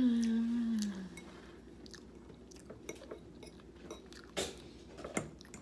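Close-up chewing and mouth sounds of someone eating biscuits and gravy, with faint scattered clicks and two sharper clicks near the end. It opens with a short, low vocal sound about a second long, falling slightly in pitch.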